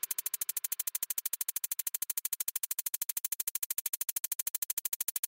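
Steady electronic pulsing, about fourteen short, even pulses a second, like a synthesizer buzz.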